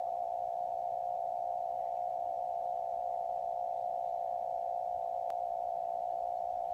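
Amateur radio receiver audio on the 20-metre band in CW mode: a steady band of hiss squeezed through the narrow CW filter, with one faint click about five seconds in. It is an unidentified interference noise that the operator hears from the northwest and is trying to trace.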